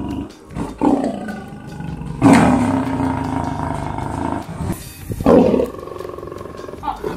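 African lion roaring repeatedly through a chain-link cage fence: a short roar about a second in, a long one from about two seconds, a loud one around five seconds and a brief one near the end.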